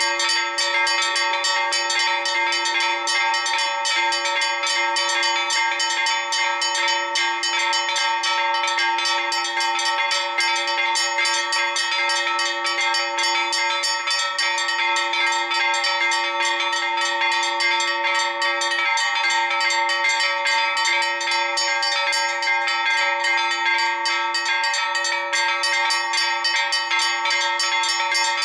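A peal of four bronze church bells, the largest cast in 1828, rung together rapidly and without pause, strike after strike with the bells' tones hanging over one another. This is the festive peal that calls the faithful to High Mass on a feast day.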